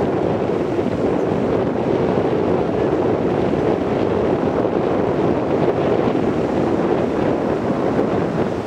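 Wind rushing over the camera microphone, with the wash of North Sea surf breaking on the beach beneath it. The noise is steady, jumping up sharply at the start.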